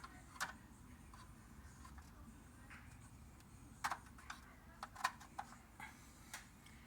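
Faint, scattered clicks and taps of small plastic scale-model parts being handled, several in quick succession a few seconds in.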